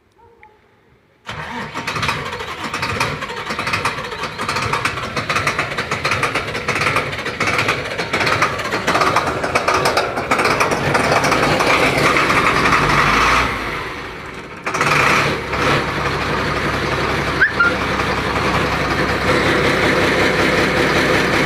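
Heavy vehicle engine running hard. It starts abruptly about a second in, eases off briefly about two-thirds of the way through, then runs on steadily.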